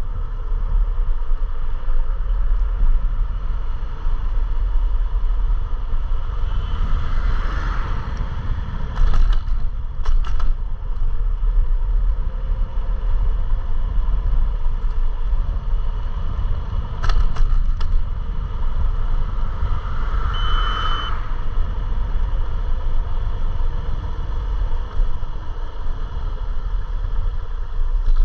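Riding an electric scooter: steady low wind buffeting and road rumble on a chest-mounted action camera's microphone. A few short rattles break through, and a brief high beep sounds about two-thirds of the way through.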